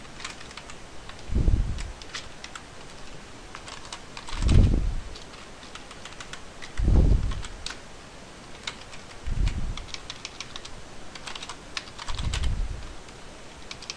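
Typing on a computer keyboard: scattered key clicks and short runs of keystrokes while text is edited. Five low, muffled sounds come about two to three seconds apart and are louder than the keys.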